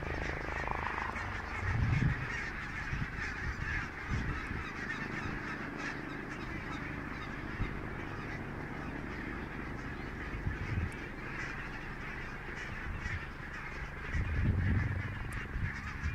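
A large flock of geese calling overhead: a continuous chorus of many overlapping honks. Two low rumbles rise over it, about two seconds in and near the end.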